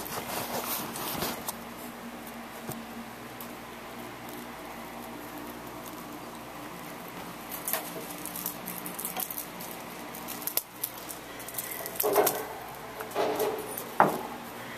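Kittens playing on a hard floor: soft pattering, light clicks and rustles as they scamper and bat small toys, over a steady low hum. A few louder rustles and knocks come near the end.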